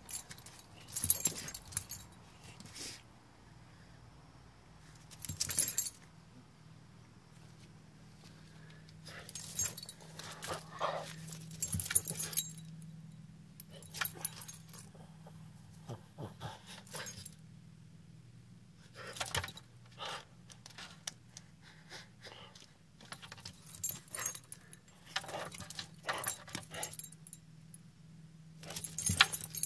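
French bulldog snuffling and pawing at the base of a pipe, sniffing out a mouse hidden behind it, with metallic jangling from her studded collar in irregular bursts. A faint steady low hum runs underneath.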